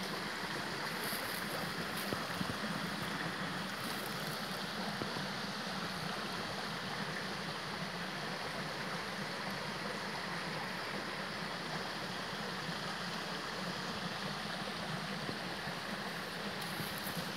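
Steady rushing background noise with no distinct events, with a faint high hiss now and then.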